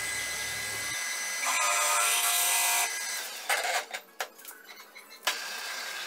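Metal lathe turning a metal blank while a twist drill bores into its centre: a steady scraping cutting noise with a thin whine over it. It breaks off and cuts back in a few times in the middle, then runs steadily again near the end.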